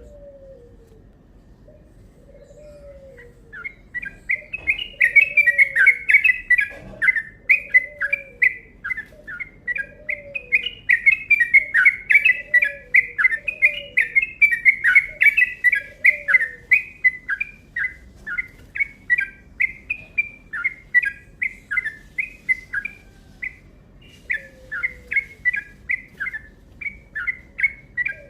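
A trucukan bulbul singing a long, fast run of chattering chirps that starts a few seconds in and keeps going without a break. Beneath it, a lower, falling call repeats about once a second, pausing midway.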